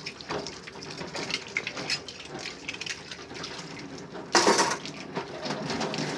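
Dishes being washed by hand in a stainless-steel sink under a running tap: water running and splashing with light clinks and knocks of dishware, and a louder, brief burst about four seconds in.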